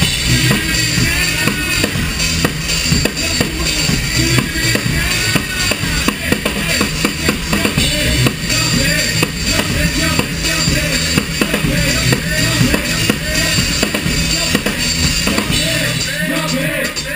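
Live band music dominated by a close drum kit played hard, a busy beat of kick and snare hits over a steady low bass line.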